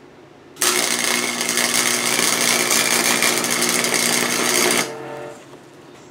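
Wire-feed (MIG) welder arc crackling and buzzing steadily for about four seconds as a weld is laid on a small steel part. The arc starts suddenly and cuts off sharply, and a fainter hum lingers for about half a second after it.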